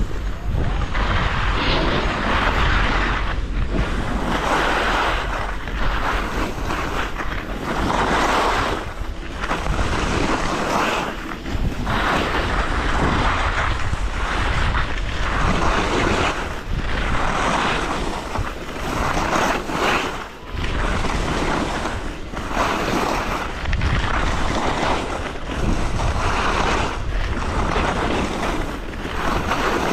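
Skis sliding and carving down a snow slope. The scrape of the edges swells and fades with each turn, every couple of seconds, over a steady low rumble of wind on the microphone.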